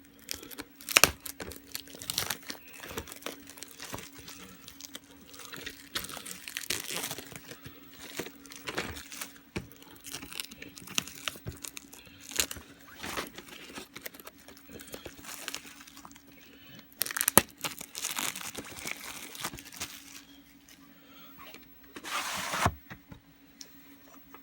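Plastic shrink wrap on a sealed VHS tape being pried open and torn off, crinkling with irregular snaps and clicks, with a couple of longer, louder tearing stretches in the second half. A faint steady hum sits underneath.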